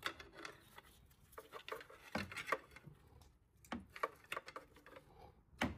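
Scattered faint metal clicks and knocks from a 2008 VW Golf's unbolted alternator being shifted and wiggled in its mounting bracket, with the sharpest knock near the end.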